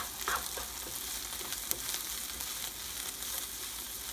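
Black bean and onion mixture sizzling steadily in a hot pan while being stirred, with a few faint clicks.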